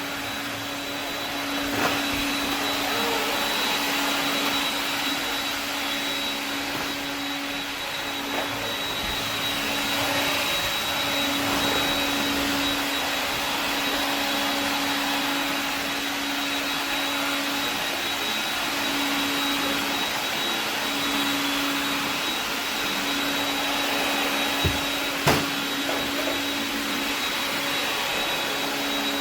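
AEG CR7 cordless stick vacuum running steadily on its retrofitted brushless motor, driven by an ESC: a constant motor hum with a thin high whine over the rush of air. Two sharp clicks about 25 seconds in.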